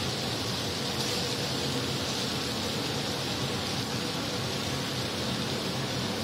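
Meat and squid sizzling on a hot flat-top griddle: a steady hiss, with a steady low hum underneath.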